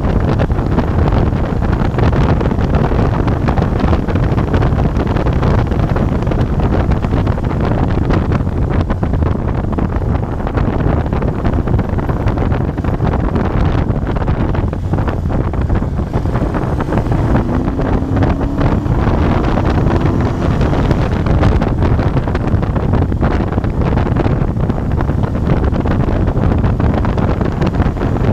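Steady wind rush on the microphone of a Moto Guzzi Bellagio motorcycle riding at road speed, with the bike's transverse V-twin engine running beneath it.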